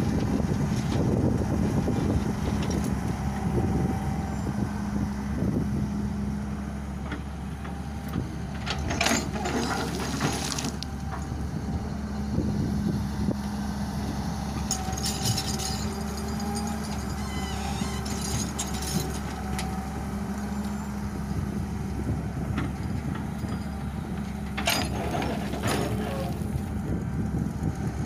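Long-arm crawler excavator's diesel engine running steadily as the hydraulics work the boom and bucket. Several short bursts of scraping and rattling come from the bucket dragging soil and stones, about nine seconds in, around fifteen and eighteen seconds, and near the end.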